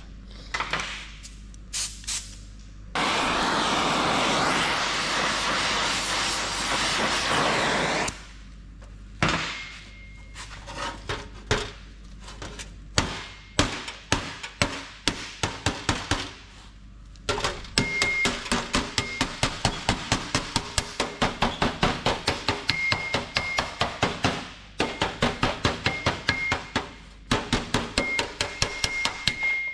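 Hammer and dolly striking the sheet steel of a rusty car door panel to work out oil-canning: scattered blows at first, then fast runs of about four strikes a second with short pauses, some blows ringing briefly. Near the start there is a steady hiss for about five seconds.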